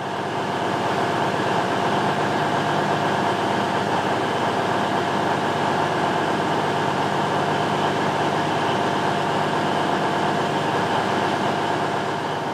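A steady mechanical drone with several held tones, like an engine or machine running without change.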